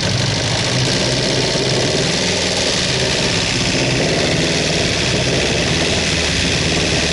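Ford Sierra engine running steadily at a loud, even level, knocking and misfiring after four years laid up; the owners hear a knock from the top end and take it for a rattling connecting rod, a sign the engine is finished.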